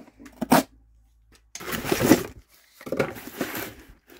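Cardboard box being opened: a short, sharp rip of packing tape slit with a utility knife about half a second in, then two longer stretches of cardboard flaps scraping and crinkling as they are pulled open.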